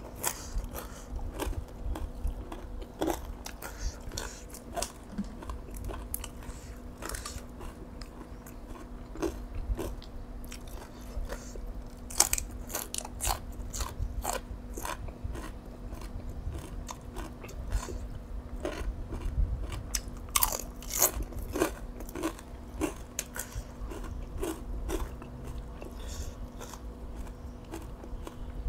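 Close-up eating sounds of a person chewing boiled field snails and spicy bean salad: wet chewing with many sharp, irregular mouth clicks. A faint steady hum lies underneath.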